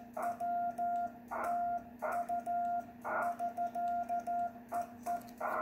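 Morse code sent on a 1963 Vibroplex Lightning Deluxe bug worked side-to-side as a sidetone of about 700 Hz, in dots and dashes, with faint clicks from the key. Short patches of receiver hiss come between characters. Near the end the tone stops and steady hiss remains.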